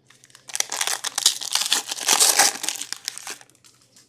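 Trading-card pack wrapper crinkling and crackling as it is handled and crumpled, for about three seconds.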